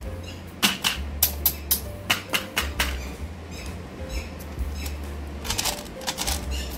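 Hard plastic candy-toy lollipop dispensers and candy tubes clicking and tapping as they are picked up and handled, many sharp clicks in quick irregular clusters.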